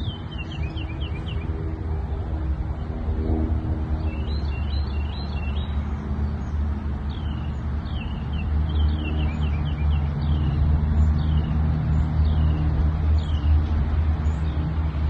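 Birds chirping repeatedly in short quick calls over a steady low rumble, which grows a little louder about halfway through.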